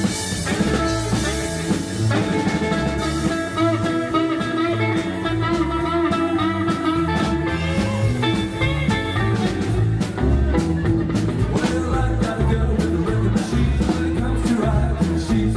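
Rock and roll band playing an instrumental break: an electric guitar lead with bending notes over bass and a steady drum beat.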